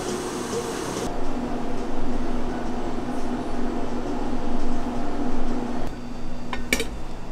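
Steady mechanical hum of a fan or air-conditioning kind, with a brief sharp clink near the end.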